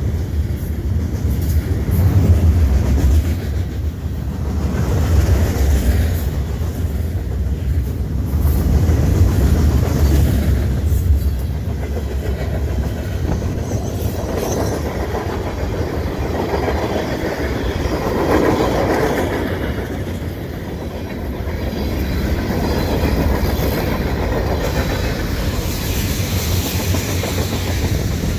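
Freight cars of a slow-moving mixed freight train, gondolas and then tank cars, rolling past close by. The steel wheels on the rails give a steady low rumble that swells and eases every few seconds.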